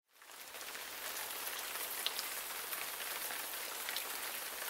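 Steady crackling hiss sprinkled with small ticks, like rain pattering, fading in at the start.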